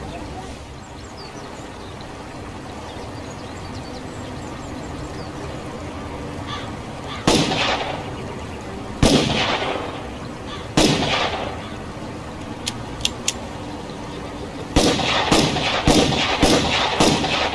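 Revolver shots: three single shots spaced a second and a half to two seconds apart, each with a ringing tail. Then three light clicks, and near the end a fast string of about six shots, over a steady background hiss.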